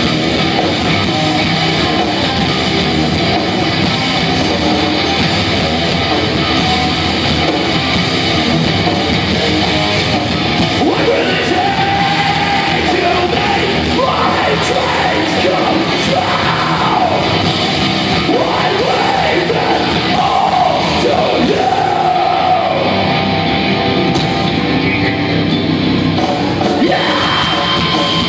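Live heavy metal band playing loud, with distorted electric guitars and a drum kit, in a large hall. Sung and yelled vocals come in about ten seconds in.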